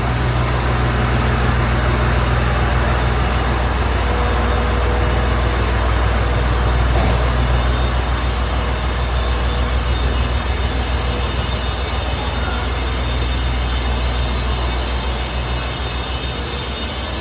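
KiHa 54 diesel railcar running: a steady low engine drone under continuous wheel and rail noise.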